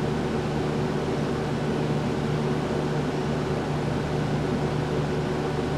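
Electric fans running: a steady whir of moving air over a low, even motor hum.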